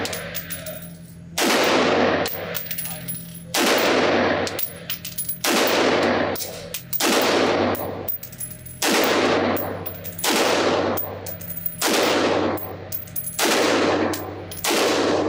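Sig Sauer MCX-Spear LT 5.56 pistol with an 11.5-inch barrel firing single shots, about nine of them at a slow, steady pace of one every one and a half to two seconds. Each shot rings out with a long echo off the concrete walls of the indoor range.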